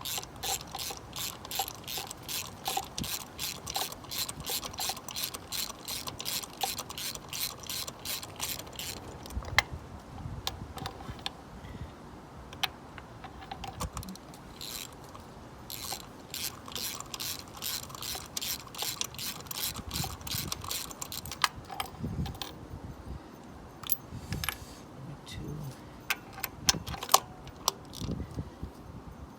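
Hand ratchet with an extension and a 5/8 spark plug socket clicking in quick, even runs of about four or five clicks a second as spark plugs are turned out. Two long runs of clicking are followed near the end by scattered clicks and knocks of the tool and socket.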